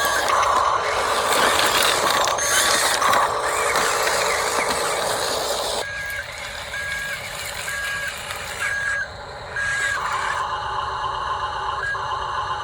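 Radio-controlled model excavator working: its motors whirring with a busy mechanical noise for several seconds. Then about six short, evenly spaced beeps like a travel warning alarm, followed by a steadier high hum.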